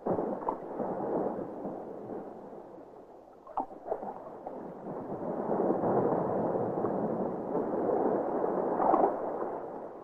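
Water rushing and gurgling, starting suddenly, easing off briefly and then swelling again, with a few faint clicks.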